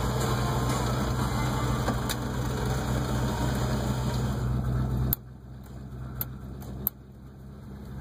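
1986 Chevrolet K5 Blazer's electric tailgate-window motor running steadily as the rear glass lowers, then cutting off suddenly about five seconds in, followed by a few light clicks. The motor is working again now that the corroded tailgate safety switch passes its signal.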